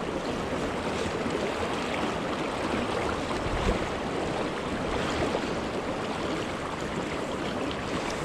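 Steady rushing of a high, fast-flowing river current, an even wash of moving water.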